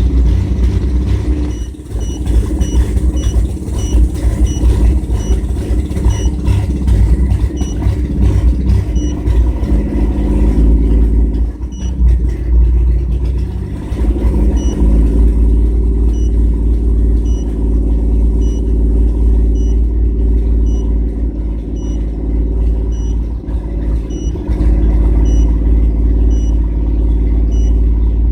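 1997 GMC Jimmy's 4.3-litre V6 running steadily at a raised speed of about 2,000 rpm, with an uneven note from a misfire. A series of short high beeps repeats over it.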